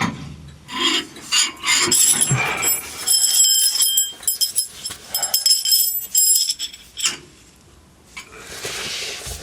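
Steel roller rods clinking and knocking under a heavy workshop table as it is shifted along on them. Several strikes ring with a high metallic ring in the middle of the stretch, and there is a hissing scrape near the end.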